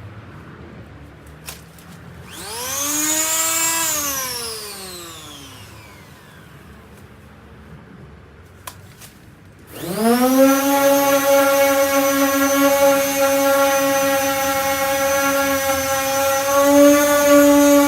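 Electric sander with a 240-grit sanding disc, its motor whine spinning up briefly about two seconds in and winding down. It starts again just before ten seconds and runs steadily at a high whine, with a small click shortly before each start.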